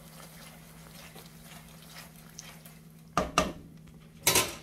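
A silicone spatula stirring macaroni through thick cheese sauce in a stone-coated frying pan, with a soft wet scraping, over a low steady hum. A little after three seconds in come two sharp clatters of kitchenware, and near the end a louder one.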